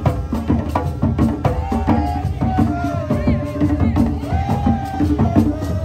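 Hand drums beating a quick, steady dance rhythm, with voices singing over it.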